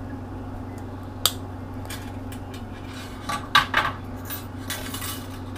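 Small metal clicks and clinks of crimping pliers and a steel-wire leader rig with hooks being handled over a glass tabletop: one sharp click about a second in, then a quick cluster of clinks past the middle. A low steady hum runs underneath.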